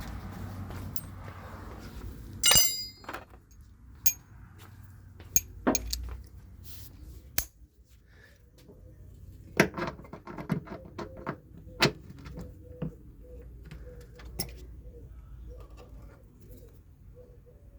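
Scattered metallic clinks, clicks and knocks of hand tools and bolts at work on the washer fluid reservoir in an engine bay. One loud ringing clink comes a couple of seconds in, and a quicker run of knocks comes about ten seconds in.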